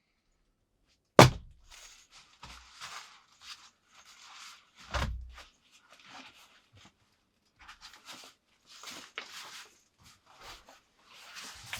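A sudden sharp knock about a second in, a heavier dull thud a few seconds later, then scattered short scraping and rustling noises of objects being handled.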